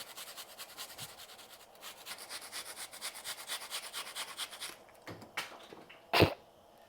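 Onion being grated on a hand grater: quick, rhythmic rasping strokes that stop about two-thirds of the way through. A couple of light taps follow, then one sharp knock near the end, the loudest sound.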